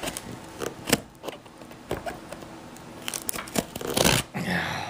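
Knife blade cutting and slicing through the plastic seal on a cardboard product box: a series of short, sharp scrapes and snicks, with a longer tearing rasp about four seconds in.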